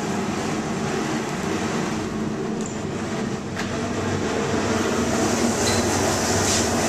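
Steady loud roar of a hot commercial kitchen grill and its ventilation. The hiss brightens a little near the end as a steak goes onto the grates.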